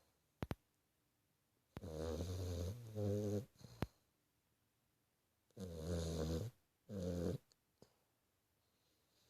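A sleeping puppy snoring: two raspy snoring breaths about four seconds apart, each in two parts, with a sharp click about half a second in.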